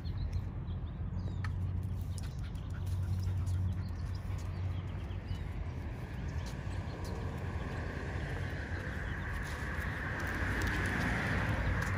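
Outdoor dog-walk sounds: a walker's footsteps and scattered light clicks over a low steady rumble on the microphone. A hiss swells in the second half and is loudest near the end.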